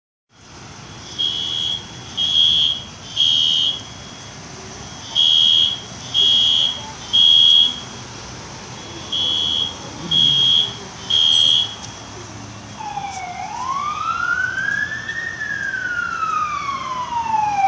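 Building fire alarm sounding the temporal-three evacuation signal: high beeps in groups of three, three groups in all, stopping about twelve seconds in. An emergency vehicle's wail siren then rises and falls slowly, getting louder.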